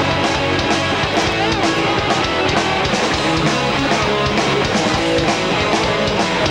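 Hardcore band playing live: distorted electric guitars, bass guitar and a drum kit driving a fast, steady beat.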